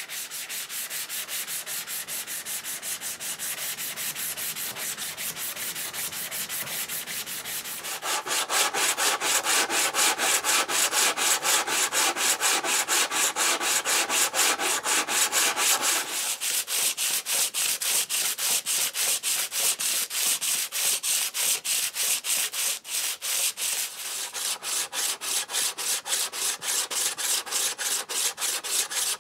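Natural stone rubbed back and forth on a diamond sharpening plate to lap its face flat: a gritty scraping in quick, even strokes. It grows louder about eight seconds in, and its tone shifts again around sixteen seconds.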